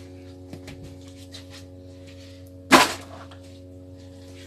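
A single sharp knock about three seconds in: a kitchen item set down hard on the worktop during food preparation. A few faint clicks come before it, over a steady low hum.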